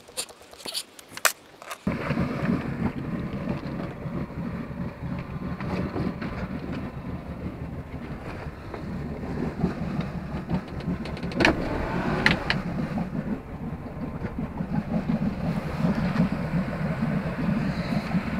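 Sailboat's outboard motor idling steadily, cutting in abruptly about two seconds in, with a couple of sharp knocks partway through.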